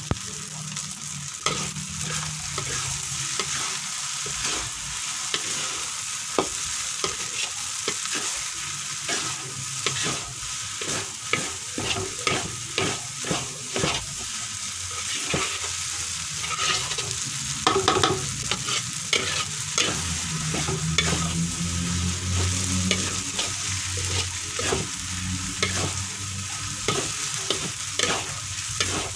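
Noodles and rice vermicelli sizzling as they fry in a wok, stirred and tossed with a metal spatula that scrapes and clacks against the pan again and again, louder clacks about two-thirds of the way through.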